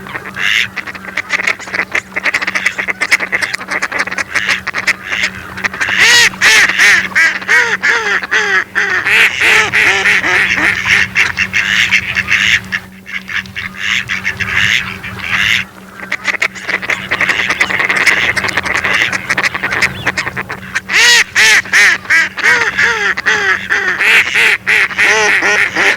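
Several mallard ducks quacking in rapid, overlapping series, loudest about six seconds in and again about twenty-one seconds in, with a brief lull around the middle. A steady low hum runs underneath.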